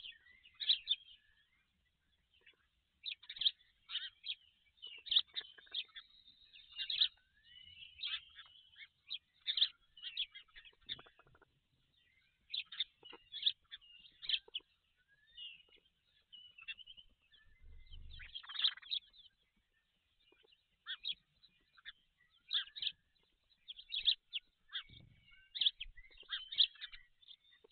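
Birds chirping: a busy run of short, high, squeaky calls, some sliding in pitch, with a brief low rumble about eighteen seconds in.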